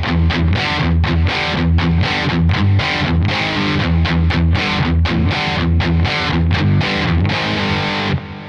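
Distorted electric guitar played through a Kemper Profiler amp modeller: a riff of short, rhythmic chords. It stops sharply near the end and rings away.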